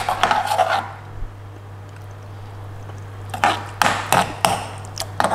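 Metal spoon knocking and scraping against a metal frying pan of thick curry as it is stirred: a cluster of sharp knocks at the start, a quieter stretch, then a few more sharp knocks from about three and a half seconds in.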